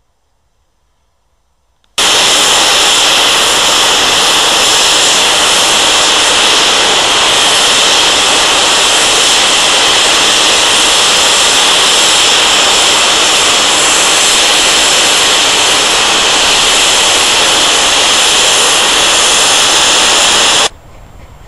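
Safety valves of steam locomotive 34046 Braunton, a rebuilt Bulleid West Country class Pacific, blowing off: a loud, steady hiss of escaping steam that starts abruptly about two seconds in and stops suddenly near the end. The sign of a boiler at full working pressure.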